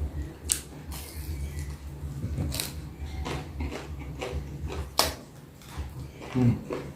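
Close-miked eating sounds: a steady low chewing rumble broken by three sharp clicks, with a heavier knock near the end.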